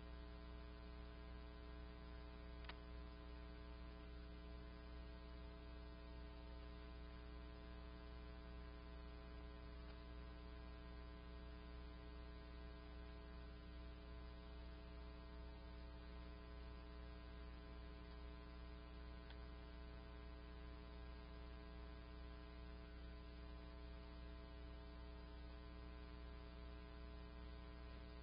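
Faint, steady electrical hum with a stack of evenly spaced overtones, unchanging throughout.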